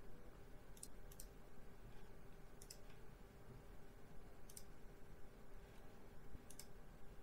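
Faint clicks of a computer mouse, about six of them a second or two apart, the first two in quick succession, over a faint steady hum.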